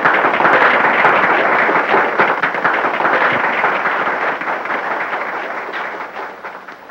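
A crowd of people applauding. The clapping is loud at first and dies away gradually over several seconds.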